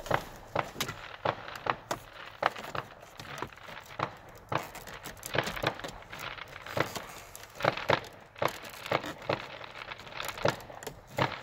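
Irregular sharp plastic clicks and knocks from a dash air vent on a 1995–99 GM pickup as it is handled and pushed into its opening in the dash.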